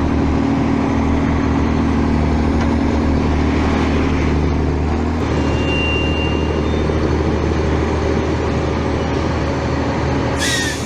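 Heavy loaded logging truck's diesel engine running steadily under load as it works through mud, with its note changing about halfway through.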